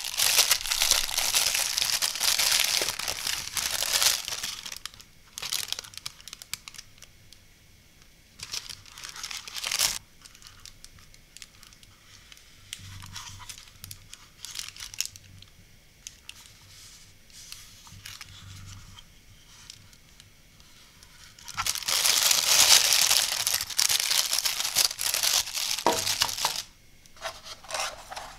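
Thin clear plastic bag crinkling loudly as a battery charger is slid out of it, then quieter handling of the charger with a few small clicks, and a second long stretch of loud plastic crinkling near the end.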